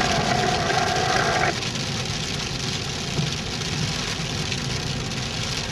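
Jeep running slowly down a dirt mountain trail, heard from inside the cabin: steady engine and road noise. A steady high tone drops out about a second and a half in.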